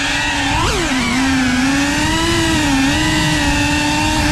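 Cinewhoop FPV quadcopter's brushless motors and ducted propellers whining steadily, the pitch rising and falling gently with throttle. A quick throttle blip a little under a second in sends the whine up and straight back down.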